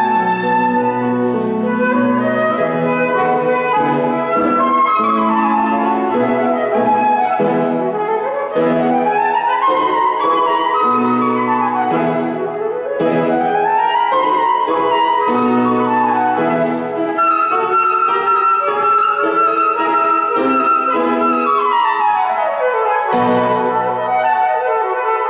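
Flute and grand piano playing a classical duet: quick runs sweep up and down over repeated chords, then the flute holds a long high note before a falling run near the end.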